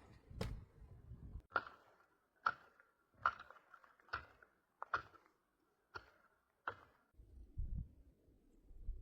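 A series of about eight sharp knocks, roughly one every second, each with a brief ringing tone, starting a second and a half in and stopping near the end.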